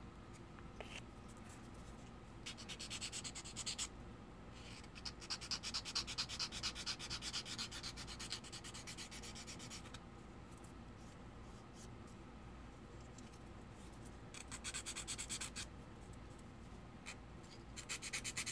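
A small plastic model-kit part being sanded by hand with a sanding stick: bouts of quick back-and-forth rasping strokes, the longest lasting about five seconds, with short pauses between.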